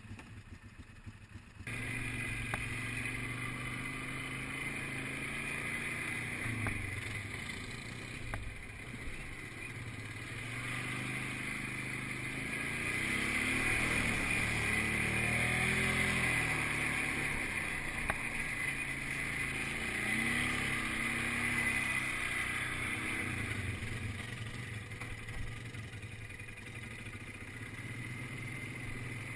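ATV engine running as the quad is ridden, its revs rising and falling. It comes in about two seconds in, after a brief quieter moment.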